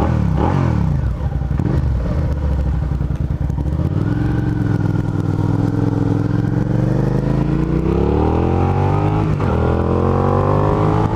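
A 2009 Suzuki SV650S's V-twin engine on the road: the revs fall in the first second or so, hold steady, then climb steadily from about four seconds in, dropping briefly near nine seconds as at a gear change before rising again.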